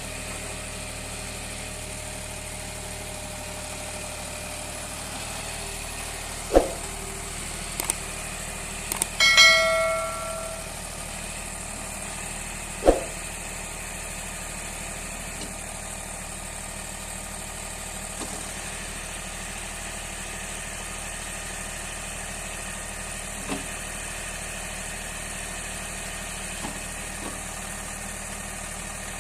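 John Deere 5310 tractor's diesel engine idling steadily. Two sharp knocks, about six and a half and thirteen seconds in, and a short metallic ringing around nine seconds in break over the hum.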